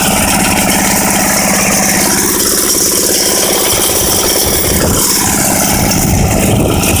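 Belarus 9 hp walk-behind tractor's engine running steadily while it drives the rotary tiller through the soil.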